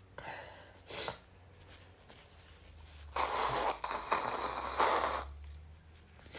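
A person sneezing: one short, sharp sneeze about a second in, then a louder two-second stretch of breathy nasal noise broken into several pulses, and another short burst at the very end.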